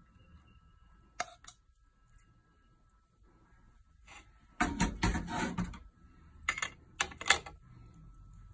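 Kitchen utensils knocking and clattering: two light clicks about a second in, then a rattling clatter of about a second, then several sharp knocks, as a frying pan and cutlery are handled at a cooktop.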